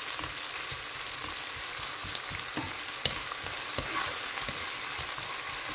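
Grated garlic and frozen chopped coriander sizzling in olive oil in a non-stick pan as a plastic spoon stirs them. A steady frying hiss runs throughout, with a few faint ticks from the spoon against the pan.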